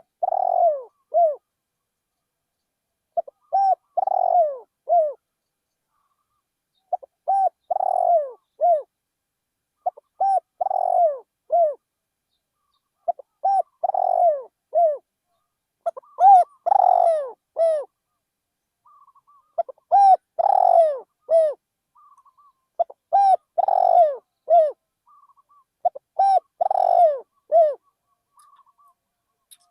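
Spotted dove cooing: a phrase of a few coos repeated about every three seconds, nine times. Fainter short calls sit in the gaps near the end.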